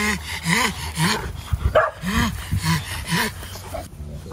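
A dog barking repeatedly in short, pitched barks, about two a second, that stop shortly before the end.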